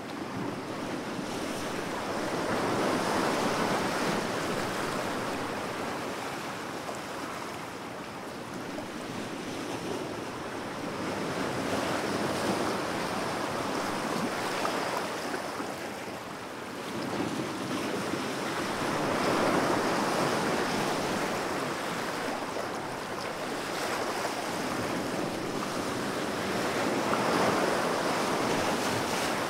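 Ocean surf: waves breaking and washing in, a rushing noise that swells and ebbs about every eight seconds.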